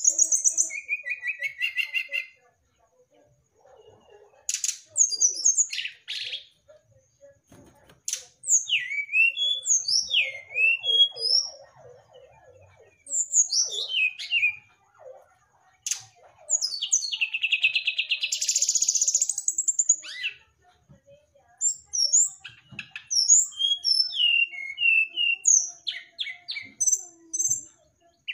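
Brown-chested jungle flycatcher singing: phrases of quick, sharp, sliding whistled notes and chirps with short pauses between them, and one longer buzzy note about two-thirds of the way through.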